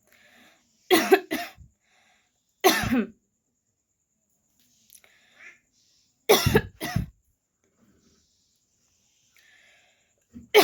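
A woman coughing deliberately in short fits: a double cough about a second in, a single harsh cough near three seconds, and another double cough past six seconds, with soft breaths drawn in between. The coughing starts up again right at the end.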